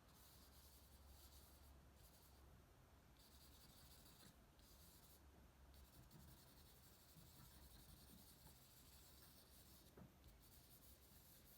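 Very faint rubbing of charcoal being smudged and blended on drawing paper, over a low steady room hum.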